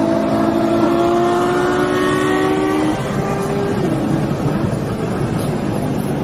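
Ferrari sports car engine accelerating hard, its pitch rising steadily, then breaking off about three seconds in and fading as the car pulls away, over road noise.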